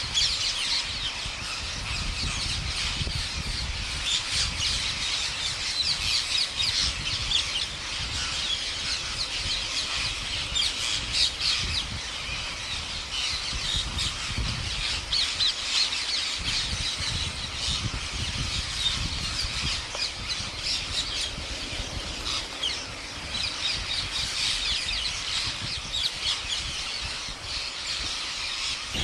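A large flock of rose-ringed parakeets screeching continuously, many short harsh calls overlapping into one dense, steady chorus.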